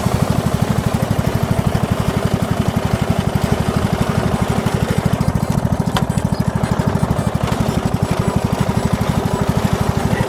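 Briggs & Stratton PowerBuilt engine of a McCulloch M125-97 ride-on mower running steadily with an even, fast beat. A single short click about six seconds in.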